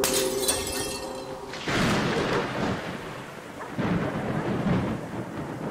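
Thunder: a sharp crack at the start, then a long rolling rumble and a second roll a couple of seconds later.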